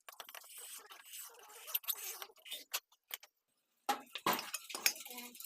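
Light metallic clinks and scraping of hand tools working on engine metal, in short irregular strokes, with a brief cut to silence about three seconds in.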